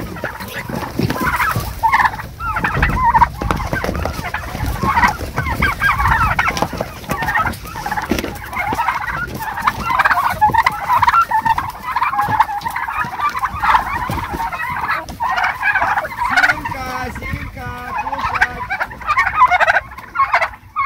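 A crowd of hungry farm animals let out for feeding, calling loudly and without pause in a dense, overlapping chorus of squeals and chatter.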